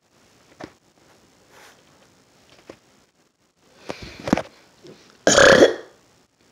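A person belching: one loud, rough burp lasting under a second about five seconds in, preceded by a few faint clicks and softer short sounds.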